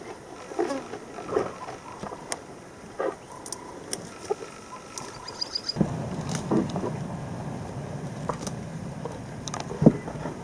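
Outdoor bush ambience with scattered clicks and short bird calls, including a brief high trill about five seconds in. From about six seconds in a steady low rumble sets in, with a single sharp knock near the end.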